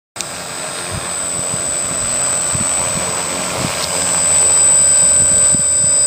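Electric RC plane's motor and propeller running with a steady high whine over a rushing noise, growing gradually louder. Low wind thumps buffet the microphone.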